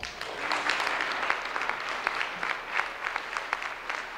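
Audience applauding: a dense patter of hand claps with individual sharper claps standing out, starting right after an award winner's name is called.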